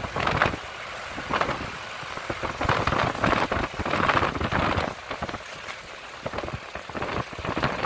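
Road vehicle driving over a rough, unpaved road: steady road and engine noise broken by many short knocks and rattles.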